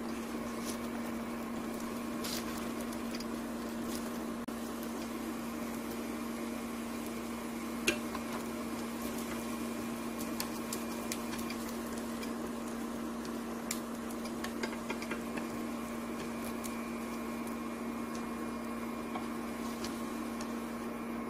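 Egg-coated sausage slices sizzling gently in oil in a frying pan, over a steady electrical hum. Light clicks and taps of wooden chopsticks and a plastic spatula against the pan as the slices are turned, the sharpest one about eight seconds in.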